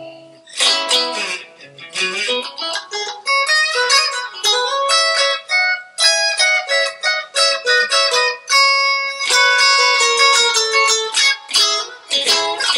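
Electric guitar, a roasted-ash Fender Stratocaster, played on its second pickup position (bridge and middle pickups together): a busy run of quick picked notes and short chords. The tone has definition and articulation.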